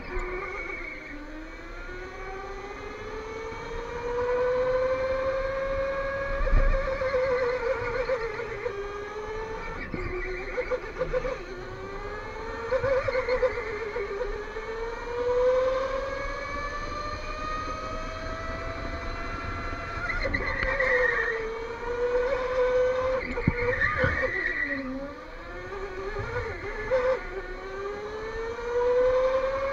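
Electric go-kart motor whining, its pitch climbing as the kart accelerates and sinking as it slows for corners, over and over through the lap. A few short knocks sound over it.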